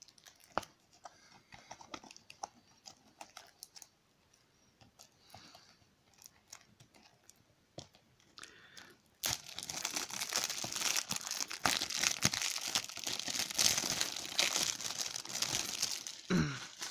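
Plastic wrapping being picked at and torn off a DVD case: scattered small clicks and rustles at first, then from about nine seconds in some seven seconds of continuous crackling and crinkling as the wrap is ripped away.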